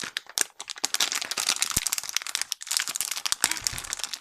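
Plastic snack bag (a Tohato Caramel Corn bag) crinkling as it is squeezed and pulled at by hand to open it: a dense, irregular run of crackles.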